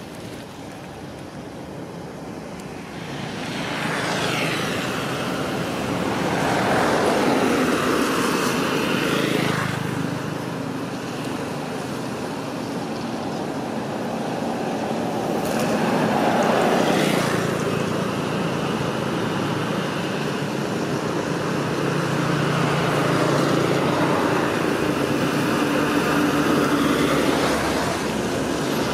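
Motor vehicles passing on a paved road: engine and tyre noise swells and sweeps in pitch, with one pass ending about nine and a half seconds in and another around seventeen seconds, then a steady engine hum.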